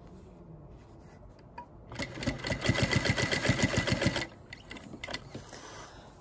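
Electric sewing machine stitching a short basting seam across the pleated edge of a fabric face mask, tacking the pleats in place. It starts about two seconds in and runs for about two seconds with a rapid, even needle rhythm, then stops. Soft fabric handling comes before and after.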